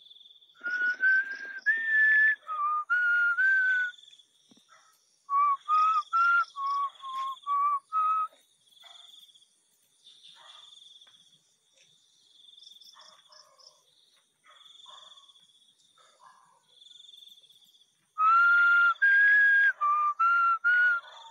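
A person whistling close by in short clear notes, in three bouts of about six or seven notes each: right at the start, a few seconds in, and again near the end. Between the bouts a faint, high-pitched insect chirps at even intervals.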